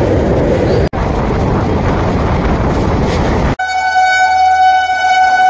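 Steady rushing, rattling noise of a moving train heard from the coach doorway, then, after an abrupt cut about three and a half seconds in, an Indian Railways locomotive horn sounding one long steady note.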